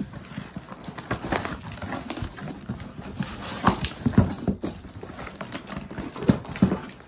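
Cardboard shipping box being pulled open by hand: flaps scraping, rustling and knocking at irregular moments, with several sharper thumps in the second half.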